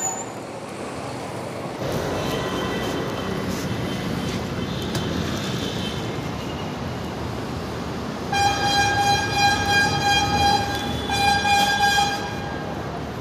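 Street traffic running steadily, then a vehicle horn sounding in a long blast of about two and a half seconds about eight seconds in, followed after a short break by a second, shorter blast.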